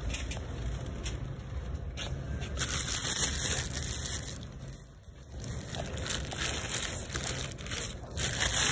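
Plastic bags of russet potatoes crinkling and rustling as they are handled, in two spells with a short lull about five seconds in.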